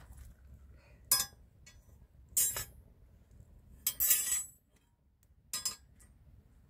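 Four short clinks and clatters of hard objects being handled, each sharp and bright, the third one longer.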